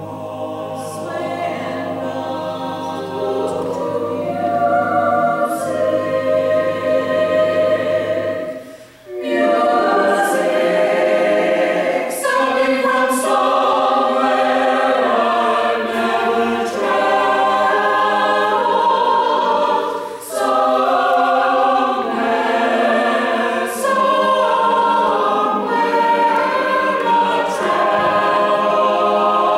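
Mixed choir of men's and women's voices singing in several parts. It grows louder over the first several seconds, breaks off briefly about nine seconds in, then goes on with fuller singing.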